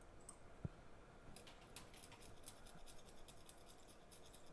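Faint rapid scratching of a tool scraping leftover glue off the separated A11 CPU and RAM. It starts about a second and a half in, after a single light tick.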